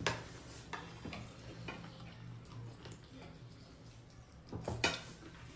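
Eating sounds: scattered soft clicks and clinks of dishes as food is taken and chewed, with a louder cluster of clinks near the end.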